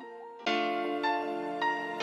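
Instrumental background music: a quiet line of stepping notes, then a fuller, louder chord comes in about half a second in.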